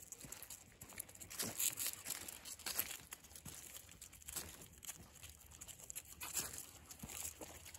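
Footsteps walking through dry fallen leaves, with irregular crunching and rustling a few times a second.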